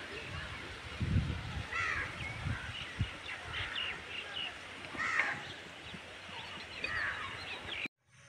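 A crow cawing outdoors, three calls a few seconds apart, over faint rural background with a few low bumps. The sound cuts off abruptly just before the end.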